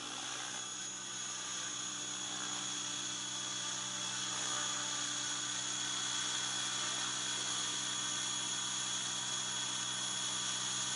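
Small remote-controlled copter's motors and rotors whining steadily as it hovers low: a high whine over a lower buzz. It grows gradually louder.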